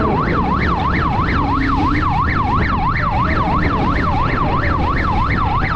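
Police siren in fast yelp mode, its pitch rising and falling about four times a second at a steady rate, over the low rumble of the motorcycle and road.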